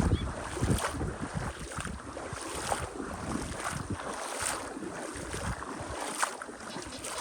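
Wind buffeting the microphone, an uneven low rumble over a steady outdoor hiss, with a few brief rushing sounds.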